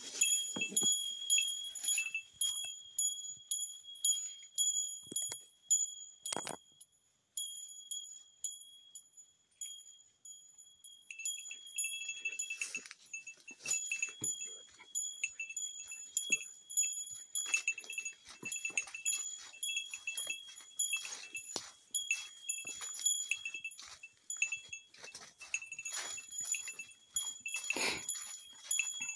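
Bear bells jingling and ringing in time with a hiker's steps along a mountain trail. A second, lower-pitched bell joins about eleven seconds in, and the jingling thins out for a few seconds just before that.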